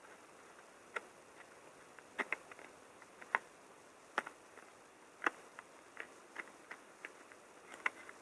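Irregular light clicks and taps from small tools and parts being handled during a smartphone teardown, a dozen or more sharp ticks spaced unevenly, the loudest a little past the middle.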